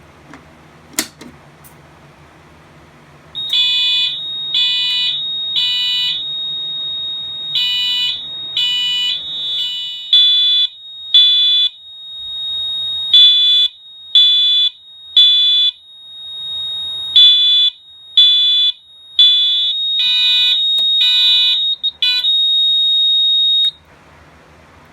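Fire alarm system in alarm after a pull station is pulled: a Wheelock MT4 multitone horn sounds loud pulses in temporal code-3 groups of three, over a steady high-pitched tone. A click comes about a second in, the alarm starts a few seconds later and cuts off shortly before the end.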